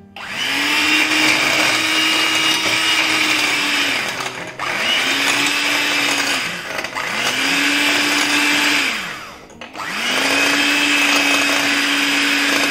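Electric hand mixer (Russell Hobbs) running with its twin beaters in whipping cream, a steady loud motor whine. It winds down and starts up again three times, at about four and a half, seven and nine and a half seconds in.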